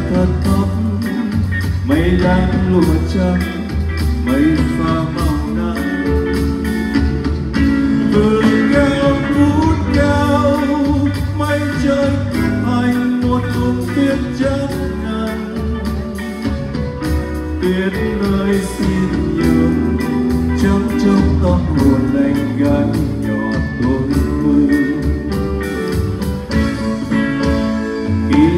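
Live band music: a slow ballad with a guitar melody over steady bass and drums.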